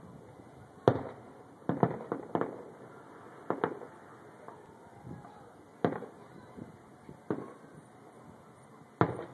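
Aerial fireworks bursting: about ten sharp bangs at irregular intervals, several in a quick cluster about two seconds in, each trailing off in a fading echo.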